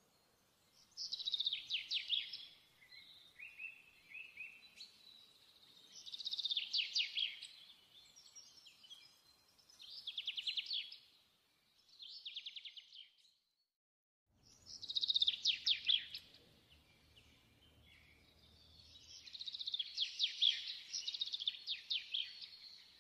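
A small songbird singing in repeated short phrases of quick chirps and trills, with brief pauses between them. The sound cuts out completely for a moment a little past the middle.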